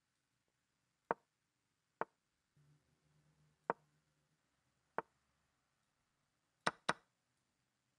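Online chess move sound effects: six short, sharp wooden clicks as pieces are played, spaced a second or more apart, the last two in quick succession near the end.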